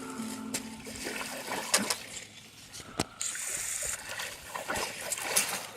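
Water splashing in a shallow forest stream: a run of short splashes over the trickle of the water, with a sharp knock about three seconds in.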